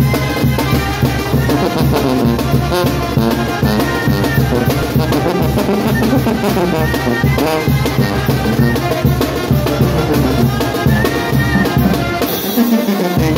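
Sousaphone playing the bass line of a chilena along with Mexican banda music of brass and drums. The low bass drops out for about a second near the end.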